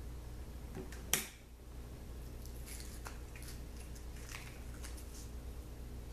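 Wax crayon being cut with an X-Acto knife and then handled and peeled: one sharp click about a second in, then faint scattered scratchy ticks.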